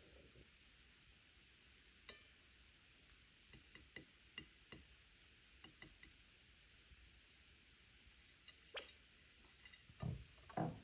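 California quail pecking at small crumbles: faint, scattered taps of its beak, with two louder dull thumps near the end.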